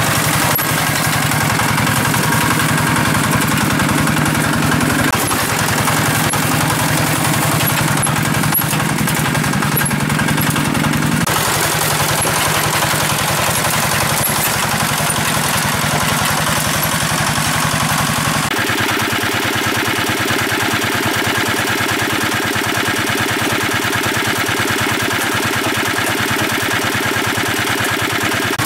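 Engine of a water pump running steadily, its tone shifting abruptly three times.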